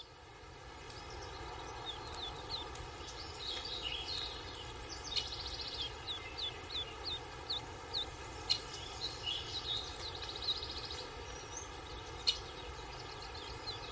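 Birds chirping, with series of short high chirps and a few trills, over a steady background of outdoor ambience. A few sharp clicks stand out, about five, eight and a half and twelve seconds in.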